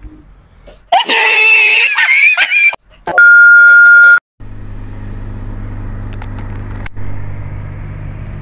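A loud, high-pitched shriek for nearly two seconds, then a steady electronic beep lasting about a second, the loudest sound here. After that, the low steady hum of a car engine heard from inside the cabin.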